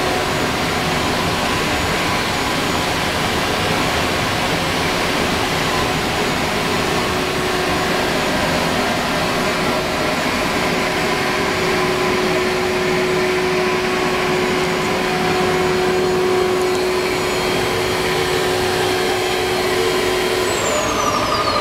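Masterwood Atlas 5XL five-axis CNC machining centre running, its head and dust extraction making a steady rushing noise with a steady mid-pitched whine. Near the end a high whine falls in pitch.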